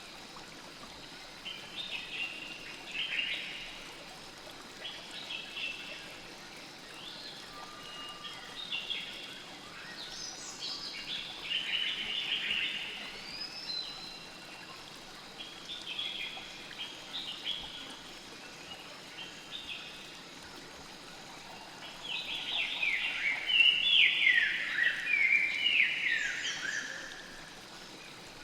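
Small birds chirping and singing in short, quick falling phrases, in bursts every few seconds, over the steady flow of a stream. The song is busiest and loudest near the end.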